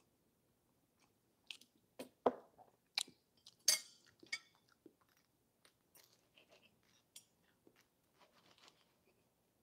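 Tableware sounds: a few sharp knocks and clinks, loudest about two to four seconds in, as a paper coffee cup is set on the table and a knife and fork are picked up. Then lighter clinks and scrapes of the knife and fork on a ceramic plate as a donut is cut.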